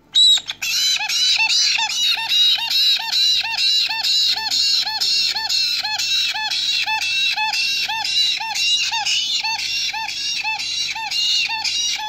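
Black-headed caique chicks begging to be fed: a loud, steady, rhythmic run of short rising-and-falling squeaky calls, about two to three a second, that stops suddenly at the end.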